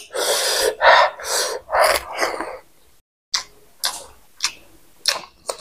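Close-up eating sounds of a man eating rice and pork by hand. There is a run of four or five loud, noisy chewing bursts over the first two and a half seconds, then a few short sharp mouth smacks about half a second apart.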